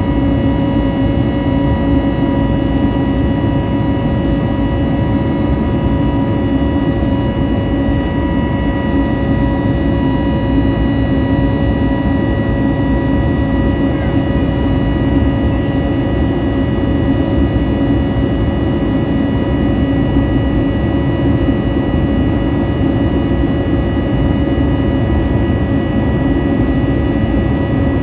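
Airbus A320neo jet engines running steadily: a constant loud rush of engine and airflow noise with several steady hums and whines held at one pitch.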